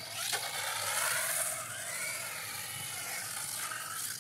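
DEERC brushless RC monster truck driving on concrete: a steady hiss from the motor and tyres, with a faint whine that rises and falls in pitch and a click about a third of a second in.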